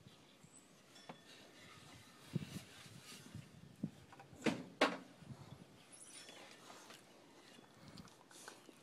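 Faint sounds of a pit bull puppy mouthing and licking a person's hand on a wooden swing, with scattered light handling noises. Two sharp knocks come in quick succession about halfway through.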